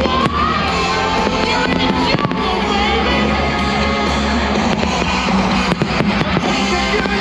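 Loud show music playing over a sound system, with several sharp firework bangs going off through it.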